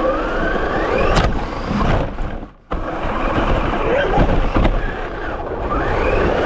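RC car driving fast, heard from a camera mounted on the car: motor whine rising in pitch as it accelerates, near the start and again near the end, over steady rumble of the tyres on the road and grass. The sound drops out briefly about two and a half seconds in.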